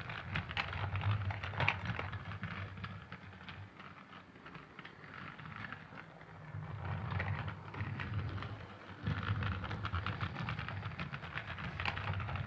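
Motorized Thomas the Tank Engine toy train running along its track: a low motor hum with rapid clicking. It fades down a few seconds in, then comes back up loud again.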